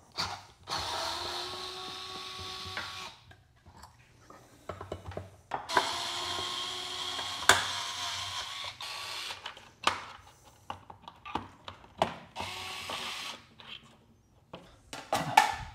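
Small electric screwdriver running in several bursts of one to three seconds while driving screws, with a steady whine, and sharp clicks and knocks of screws and parts being handled in between.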